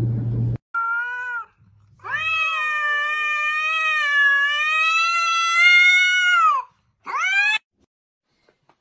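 A ginger cat yowling at another cat in a standoff: a short cry, then one long drawn-out yowl of about four and a half seconds, then a short rising cry, typical of a cat warning off a rival.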